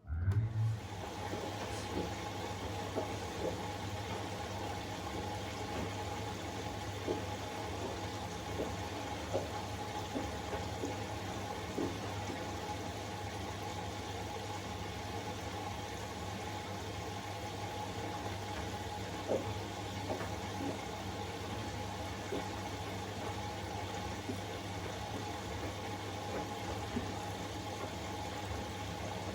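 Siemens iQ500 front-loading washing machine running early in a 60 °C cotton wash: a steady low hum with a faint hiss and occasional light knocks, starting abruptly.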